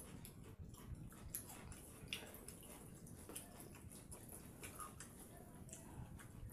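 Faint scattered clicks and wet squishes of fingers mixing watered rice (pakhala) in steel bowls.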